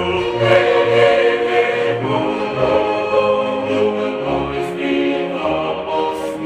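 Background music: choir-like voices singing held chords over a low bass line that changes notes every second or so.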